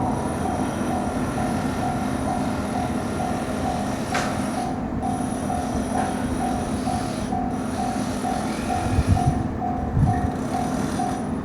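Japanese level-crossing warning bell ringing in an even 'kan-kan' about twice a second while a train runs through the crossing with a steady rumble; two heavy low thumps come near the end.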